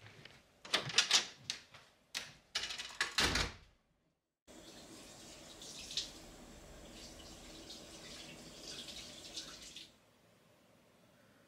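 A few loud sharp strokes in the first four seconds. After a brief cut, a tap runs steadily into a sink with small splashes as a face is rinsed.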